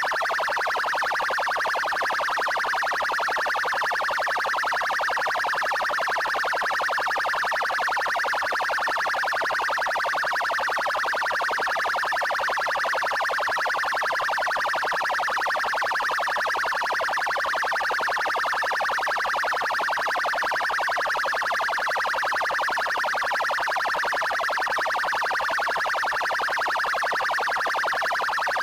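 Paraná Military Police car siren sounding its 'trail' tone continuously: a steady, fast-pulsing electronic tone that neither rises nor falls and never breaks.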